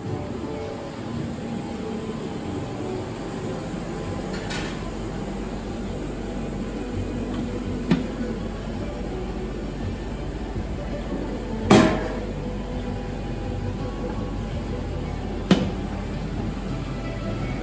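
Stainless-steel roll-top chafing dish lids knocking as they are swung open and shut: four sharp metal clanks over a steady background hum. The third clank, about two-thirds of the way through, is the loudest and rings briefly.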